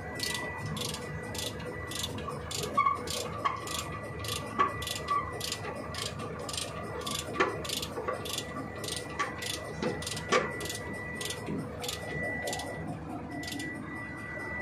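A truck's brake adjuster being turned with a ratchet, clicking evenly about three times a second, with a few louder metal knocks, as the brake is taken up after a brake chamber diaphragm change.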